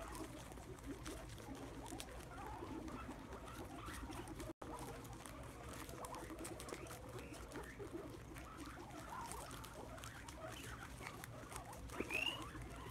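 A group of guinea pigs munching Brussels sprouts and shuffling in wood shavings, a steady faint crackle with small soft squeaks. A short rising squeak comes near the end.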